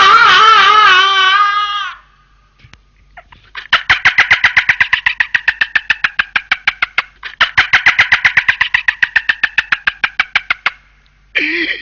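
A man's loud, wavering scream that falls off about two seconds in. After a short silence comes a long, rapid run of evenly pulsed laughter, about seven bursts a second, in two stretches.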